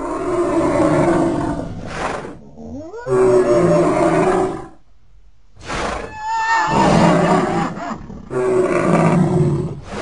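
Designed creature vocalisation: a run of about four long, deep roaring bellows, one to two seconds each, some sliding in pitch, with short sharp bursts between them and a brief lull about halfway. The calls are layered from real animal recordings, such as bull, horse and moose calls.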